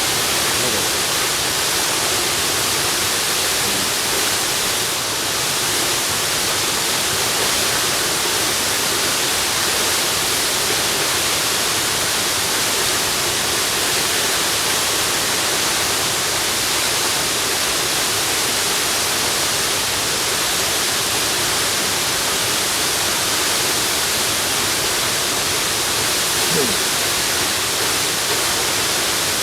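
Waterfall: a steady, even rush of falling water, strongest in the high hiss.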